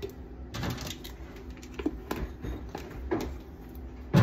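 Scattered light clicks and taps of kitchen containers being handled on a counter, ending with a louder knock.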